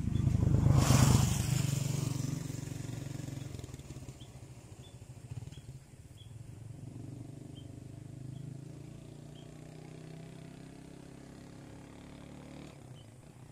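A motor vehicle passing by: its engine noise swells to its loudest about a second in, then fades away slowly over the following seconds.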